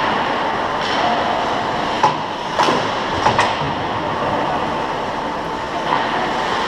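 Ice hockey play on an indoor rink: steady scraping of skates on the ice, with a few sharp clacks of sticks and puck about two to three and a half seconds in.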